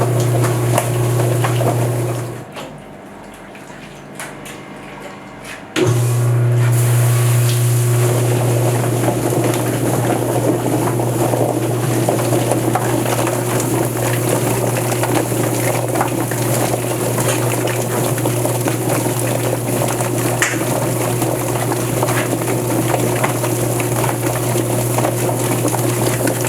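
Drum-style chicken plucker running with its water spray: a steady motor hum and hissing water, with a churning, knocking sound as the scalded bird tumbles against the rubber fingers. The hum drops away about two seconds in and starts again suddenly near the six-second mark.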